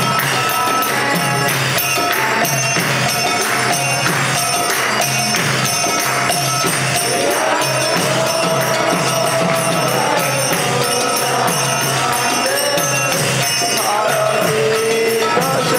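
Kirtan: mridanga drums and karatalas hand cymbals keep a fast, steady rhythm, with voices singing a melody over them from about halfway through.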